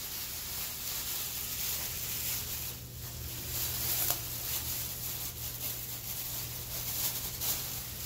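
Thin plastic 13-gallon trash bag crinkling and rustling as it is handled and gathered up from around a toilet bowl, with irregular crackles.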